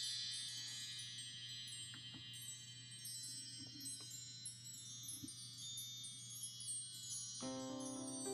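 Wind chimes ringing: a shimmer of many high, tinkling tones that slowly fade, over a low steady hum. Near the end, lower sustained musical notes come in as music begins.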